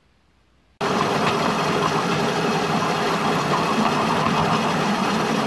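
An engine running steadily at idle, cutting in abruptly about a second in.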